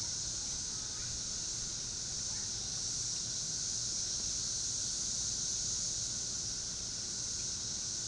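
Cicada chorus: a steady, high-pitched buzz with a fainter, lower band of cicada song beneath it.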